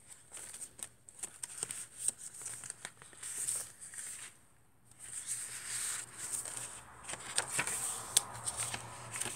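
Paper rustling and crackling as the pages of a handmade junk journal are turned and a tucked card is handled, in irregular small rustles with a short lull about halfway.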